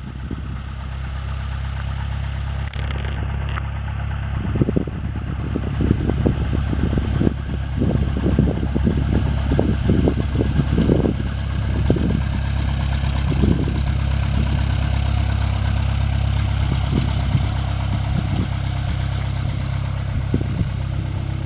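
Cessna 172's four-cylinder piston engine running steadily as the light plane flies low near the runway, with irregular low rumbles between about 4 and 14 seconds in.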